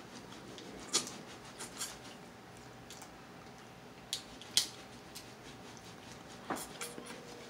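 Crab-leg shells cracking and snapping as they are broken open and picked apart by hand: a handful of separate sharp clicks, the loudest about one second and about four and a half seconds in.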